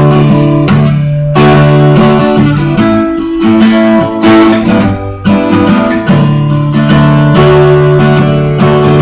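Acoustic guitar strumming chords, the instrumental stretch of a song between sung lines, with the chord changing every second or two.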